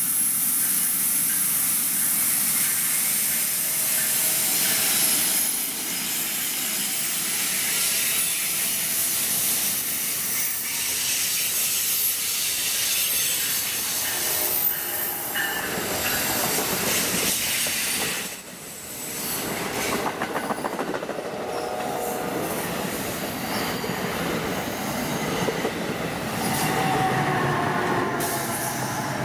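NJ Transit commuter trains with ALP-46 electric locomotives and Bombardier MultiLevel coaches passing close by: a steady rush of wheels on rail, with clicking over the rail joints and some wheel squeal. The sound dips briefly about two thirds of the way in, then rises again as more of the train goes past.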